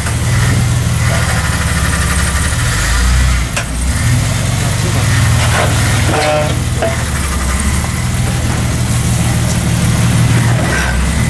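Lifted Ford Ranger's engine idling steadily, with a short sharp knock about three and a half seconds in.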